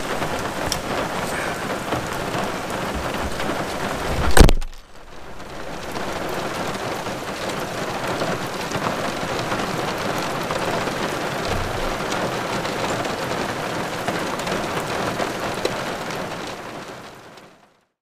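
Heavy rain hissing, heard from inside a hatchback car with its boot open, with a few knocks as bags go in. About four seconds in, the tailgate slams shut, the loudest sound; the rain then goes on as a steady patter on the closed car and fades out near the end.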